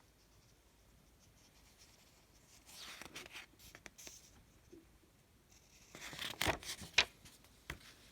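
Paper rustling as a book is handled, in two short spells: one about three seconds in, and a louder one near the end with several sharp clicks and knocks.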